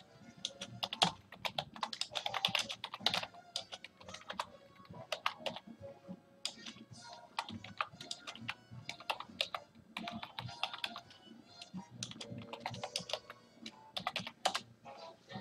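Typing on a computer keyboard, irregular bursts of key clicks, with a song playing faintly in the background.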